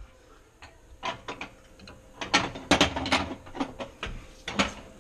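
Irregular metallic clicks and knocks as the stainless steel cooktop panel and burner parts of a gas stove are handled and seated in place, busiest in the second half.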